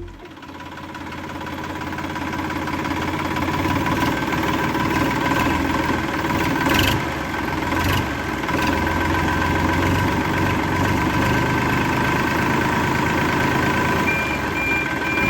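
A motor running steadily with a whine, building up over the first few seconds, with a few short clicks around the middle.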